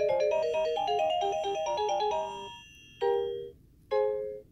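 Musical nightlight toy playing a simple electronic tune of clear, beeping notes that fades out about two seconds in. Then come two short chimes about a second apart.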